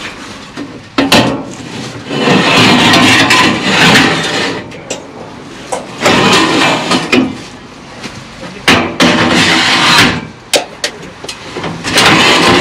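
Aluminium scaffold tower frames and ladders being slid into a van's load bay and stacked. The sound comes in several scraping, clattering bursts of metal on metal, with sharp knocks among them.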